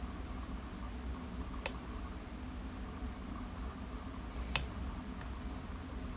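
Two short, sharp metallic clicks, a few seconds apart, from a lock pick working the pins of a 5-pin Interlock-based pin-tumbler challenge lock held in a false set.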